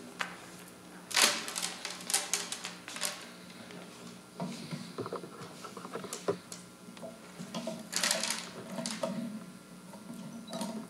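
Clicks, rattles and knocks of a boom microphone stand being positioned and its joints tightened, handled close to the microphone, in bursts near the start and again about two-thirds of the way in, over a steady low hum.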